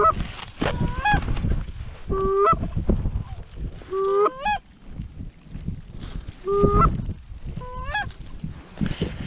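Canada goose honks, about six, each a held low note that breaks sharply up into a higher honk, spaced a second or two apart.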